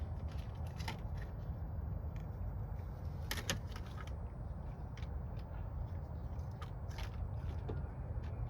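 Steady low rumble with a few short clicks and rustles from small parts being handled, the clearest about a second in, three and a half seconds in and seven seconds in.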